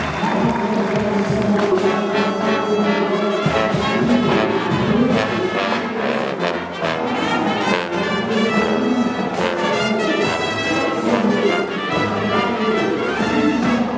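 Marching band playing: brass (trumpets and trombones) carrying a melody over drum beats.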